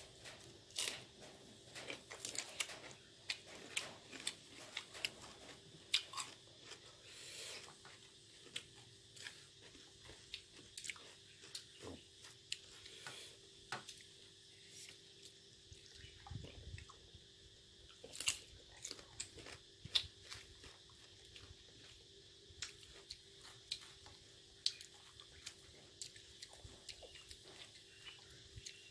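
Close-up eating sounds: a person biting and chewing boiled buffalo skin and fresh cucumber, with many small crisp crunches and wet mouth clicks at an irregular pace.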